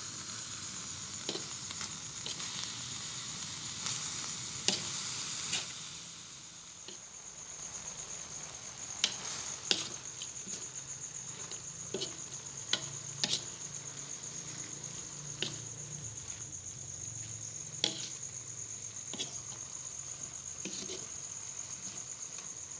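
A spatula scrapes and clicks against an aluminium wok as shredded young papaya is stirred, at irregular moments. Under it is a low sizzle, a little stronger in the first few seconds, from the papaya cooking in a little water and spice paste until tender.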